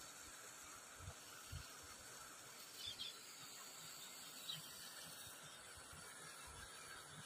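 Faint steady hiss of open-air ambience, with two brief high chirps about three and four and a half seconds in and a couple of soft low bumps near the start.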